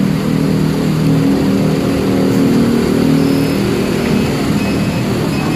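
City bus engine running at a steady idle close by: a loud, even low hum that holds one pitch.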